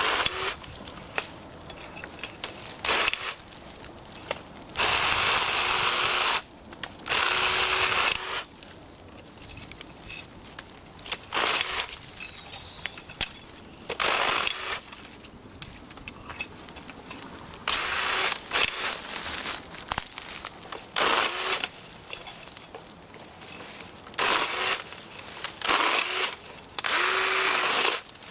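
Black & Decker Alligator battery lopper chainsaw running in about a dozen short bursts, each a second or so long, with a brief rising whine as the motor spins up each time, while the chain cuts through dead branches.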